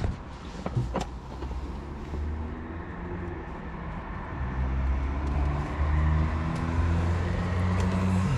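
A motor running steadily, its low hum stepping up and down in pitch, with two sharp knocks about a second in.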